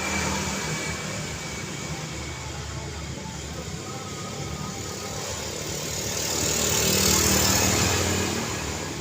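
Road traffic with cars and motorcycles running past, engines humming steadily; one vehicle grows louder as it passes about seven seconds in, then fades.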